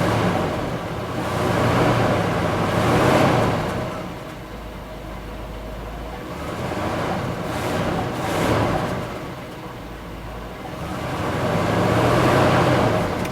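Ford Ranchero engine running, revved up and eased back three times. This is a freshly started engine with choke trouble that the owner says stalls if the throttle is opened quickly.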